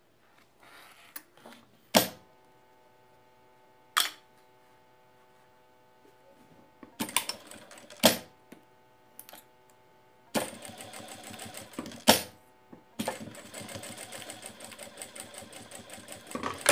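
Sewing machine stitching through fabric in several short runs, the longer ones in the second half, with sharp single clicks from the machine in between.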